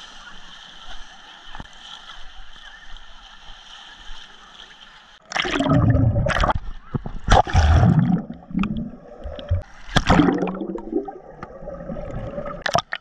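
Pool water splashing and lapping against the camera as someone wades through a wave pool. About five seconds in it turns into loud, muffled underwater rumbling and gurgling bubbles as the camera goes under the surface.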